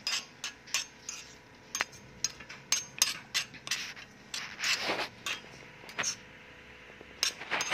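A small metal spoon stirring chopped onions and garlic in a miniature metal kadai: irregular light clinks and scrapes against the pan, with a longer scrape about five seconds in.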